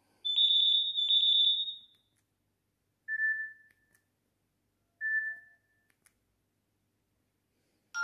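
Nokia 6630 ringtone previews from the phone's loudspeaker: two high electronic beeps with a fluttering edge in quick succession, then a shorter, lower beep that sounds twice, about two seconds apart.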